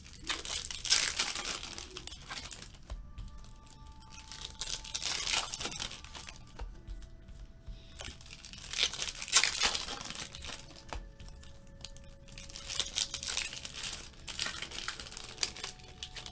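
Foil trading-card packs being torn open and crinkled by hand, in repeated bursts every few seconds, with the cards slid out and handled between them.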